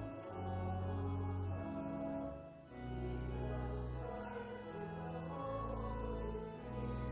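Church organ playing a hymn in slow, held chords, the bass note changing about every second and a half.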